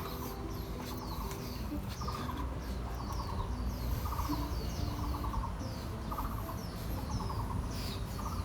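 Birds calling at dawn: many short, high, falling chirps repeating, with a lower trilled call recurring about once a second, over a steady low rumble.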